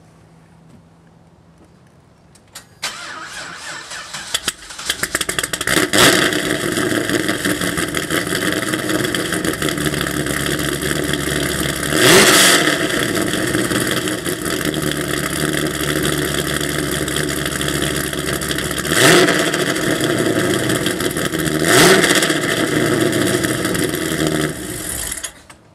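2006 Pontiac GTO's 416-cubic-inch stroker LS3 V8, with a custom cam, Kooks long-tube headers and a catless Corsa Sport exhaust. It cranks on the starter about three seconds in and fires up, then idles with three short throttle blips, and is shut off near the end.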